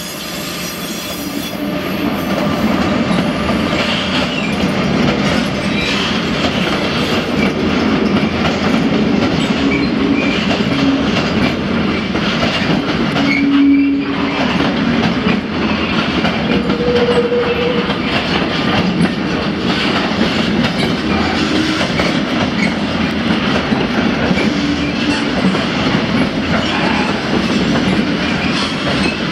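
Train passing close by: a steady, loud rumble of wheels on rail with clickety-clack. Brief squeal tones from the wheels come in about halfway through, with a short lull around the same time.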